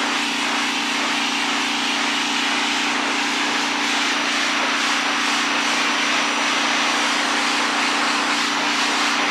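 Briggs & Stratton S1800 electric pressure washer running steadily: the hum of its electric motor and pump under the loud hiss of the water jet spraying against a propane tank.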